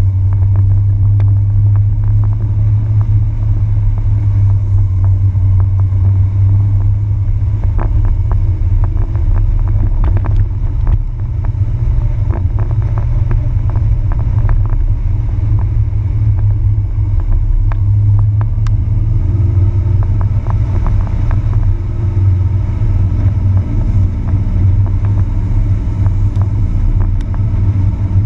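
Jeep Wrangler TJ driving off-road over a muddy, snowy dirt track: a loud, steady low rumble from the vehicle, with scattered clicks and knocks throughout.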